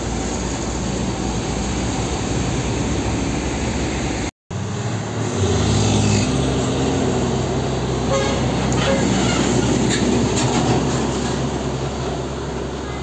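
Heavy Isuzu diesel trucks passing close by on an asphalt road: engines running and big tyres rolling, with a brief cut-out about four seconds in. After the cut a loaded Isuzu tractor-trailer comes past, louder.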